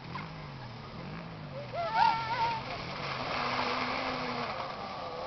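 Electric ATV with two riders coming closer: from about three seconds in, a steady hiss with a faint steady whine grows. Near two seconds in, a few short calls that rise and fall are the loudest sound.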